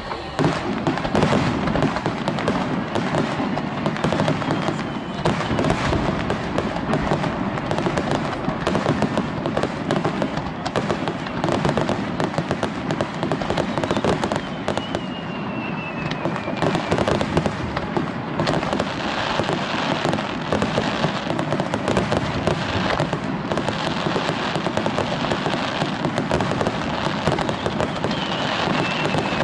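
Aerial fireworks display in a dense, continuous barrage of bursts and crackling, with a few whistling tones among them.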